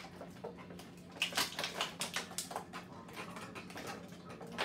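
Stiff clear plastic blister packaging holding plastic capsule balls being handled and pressed, giving irregular clicks and crackles.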